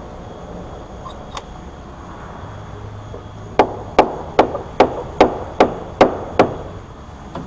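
Hammer striking, eight quick, evenly spaced blows, about two and a half a second, over a steady low hum.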